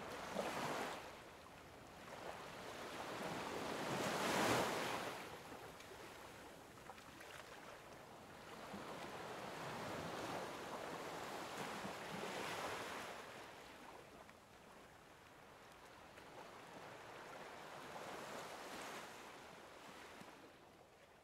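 Sea waves washing onto a beach, rising and falling in slow swells every few seconds, the loudest about four seconds in.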